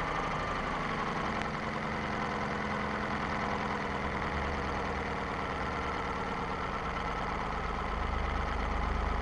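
Model vertical marine steam engine running steadily ahead on steam, a fast even beat with a continuous steam hiss, a little louder near the end.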